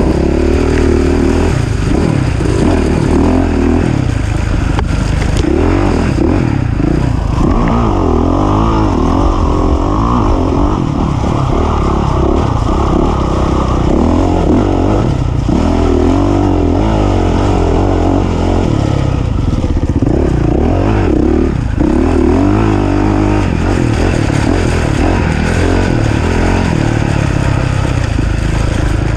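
Off-road racing engine under load, its pitch rising and falling again and again as the throttle is worked on and off.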